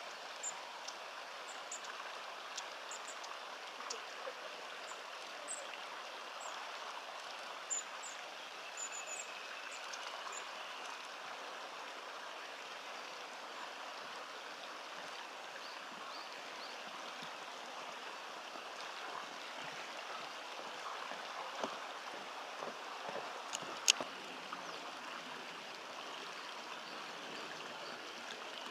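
Steady rush of flowing stream water, with short high bird chirps scattered through the first ten seconds and a single sharp click late on.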